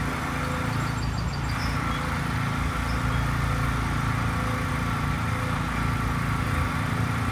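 Steady engine drone, like a motor vehicle idling, holding one constant pitch throughout.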